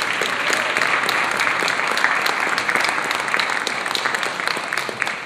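Audience applauding: a steady round of many hands clapping that begins to thin out near the end.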